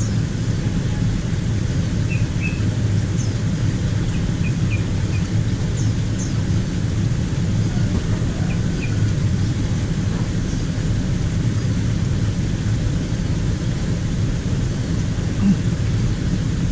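Steady low rumble with a few short, high bird chirps scattered through it.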